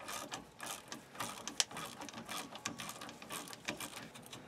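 Hand socket ratchet clicking in quick back-and-forth strokes, backing out a broken-loose brake caliper bracket bolt.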